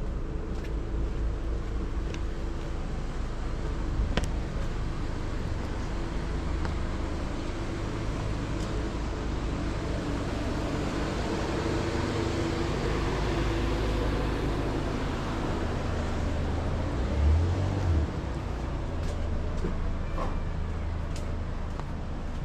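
A steady engine hum, with a wash of noise that builds and fades in the middle, as of a vehicle passing. A short low thump comes near the end.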